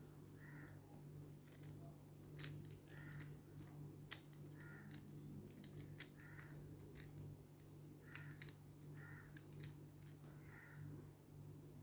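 Faint, scattered light clicks and taps from handling a toy or its packaging. Short soft sounds recur about once a second over a steady low hum.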